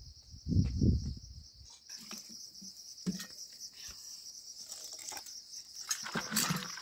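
Steady high-pitched insect chirring. Low thumps sound about half a second in, followed by scattered knocks and clicks.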